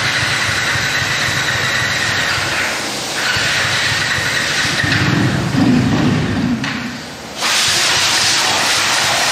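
Pressure washer spraying: a steady hiss with a faint high whine, growing louder and brighter about seven seconds in.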